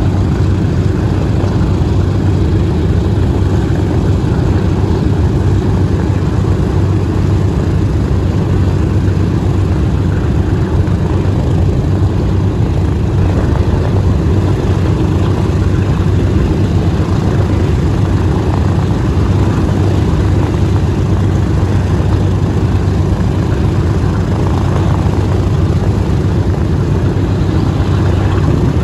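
B-17G Flying Fortress's left-wing Wright R-1820 Cyclone radial engines idling with the aircraft standing still. They make a loud, steady drone with a strong low hum that holds even throughout.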